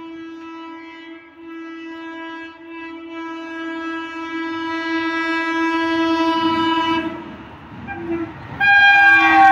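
Rajdhani Express locomotive sounding its horn as it approaches: one long, steady single-tone blast of about seven seconds, then a short toot and a louder blast near the end, its pitch sagging slightly at the very end. Under the horn the rumble of the train on the rails grows louder over the last few seconds.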